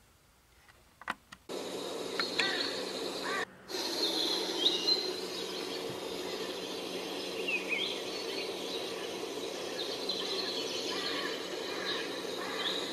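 Birds chirping and calling over a steady background hiss and hum. The sound starts abruptly about a second and a half in, after a few faint clicks, and drops out for a moment about three and a half seconds in.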